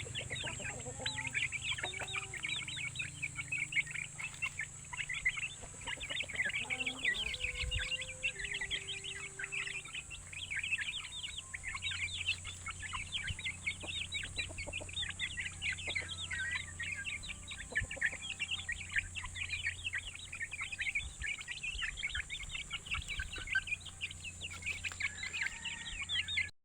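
A flock of Aseel-cross chicks peeping continuously in a dense chorus of rapid high chirps, with a few lower, longer calls near the start and again about eight seconds in. A steady low hum lies underneath, and the sound cuts off suddenly at the end.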